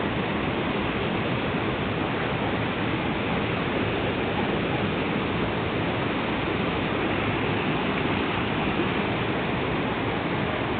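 Fast river rapids rushing over rocks: a steady, unbroken rush of white water.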